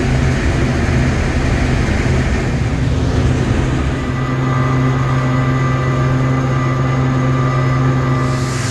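Combine harvester running steadily while harvesting corn: a loud, even engine drone with a higher machinery whine that settles into steady tones about four seconds in.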